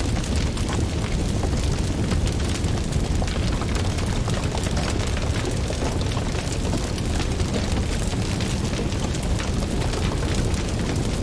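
Wood fire burning in a fireplace: a steady low rumble of flames with many small crackles and pops throughout.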